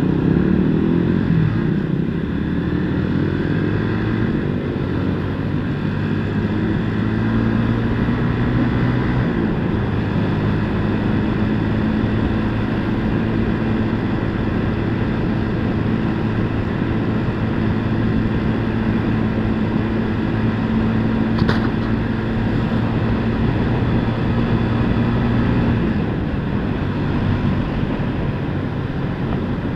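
Motorcycle engine running under way: its pitch climbs in the first couple of seconds, then holds a steady cruising note, and the engine tone drops away near the end.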